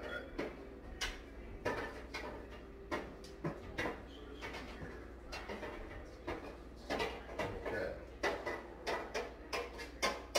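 Irregular knocks and clatter of kitchen cookware being handled: a roasting pan and metal strainer at the sink while turkey drippings are strained off.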